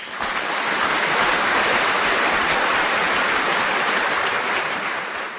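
A steady, even rushing noise with no pitch or rhythm, starting abruptly and easing off slightly near the end.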